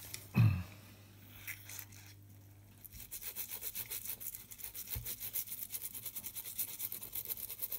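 Rapid scratchy scrubbing on a small circuit board with the applicator of a flux-remover spray can, cleaning flux residue off fresh solder joints. It starts about three seconds in and keeps up quick back-and-forth strokes, after a brief louder handling noise near the start.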